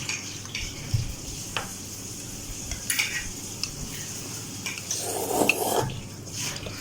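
Cutlery clinking and scraping against a bowl in a series of light, irregular clicks, with a longer scrape about five seconds in.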